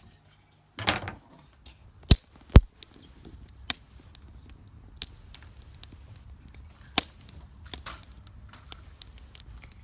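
Wood campfire crackling, with sharp irregular pops over a low steady rumble; the two loudest pops come a half-second apart about two seconds in.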